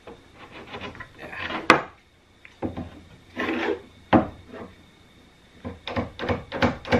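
One-handed bar clamps being squeezed tight and a wooden straight-edge shifted on a plywood sheet: irregular rubbing and scraping, with sharp clicks about two seconds in, about four seconds in and near the end.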